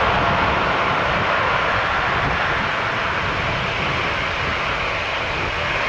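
Boeing 777 freighter's twin GE90 jet engines running at high power as it rolls down the runway. A steady, loud jet noise that fades slightly as the aircraft moves away.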